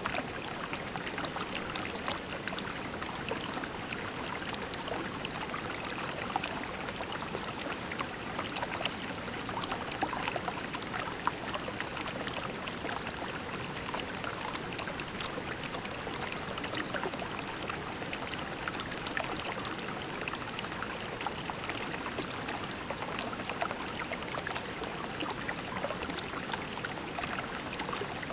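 Shallow creek water flowing and trickling over pebbles, a steady babble with many small splashes.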